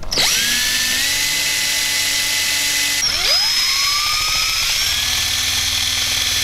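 Cordless drill driving self-tapping sheet-metal screws through a roof vent's flange into the van's metal roof. The motor whines up to speed and runs steadily, stops briefly about three seconds in, then spins up again and keeps running.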